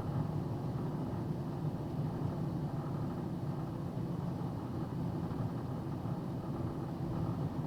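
Box truck engine running with a steady low drone.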